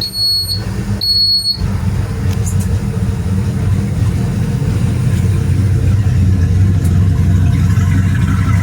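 Twin inboard engines of a Rampage boat idling together, a steady low rumble that sounds good after a wiring repair cured the starboard engine's no-start. In the first two seconds a high electronic beeper sounds twice, about half a second each.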